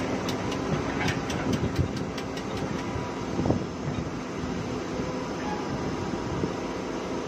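CAT hydraulic excavator's diesel engine running under load as the machine works its boom and bucket to load a dump truck. Scattered knocks and clatter of rock and soil sound over the engine, with a louder thump about three and a half seconds in.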